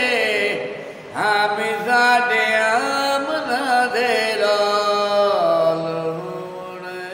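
A man's voice chanting a slow melodic line of long held, wavering notes; it breaks off briefly about a second in, then carries on, and the last held note fades away near the end.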